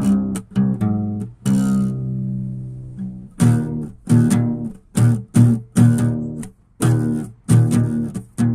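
Plucked bass-guitar playing: a held note, then a run of short, evenly spaced notes.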